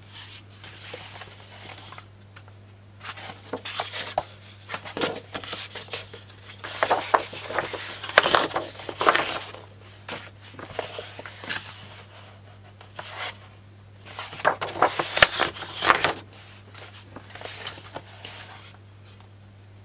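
Sheets of scrapbook paper rustling and sliding against each other as a paper pad is leafed through and sheets are moved aside, in repeated short bursts. A steady low hum runs underneath.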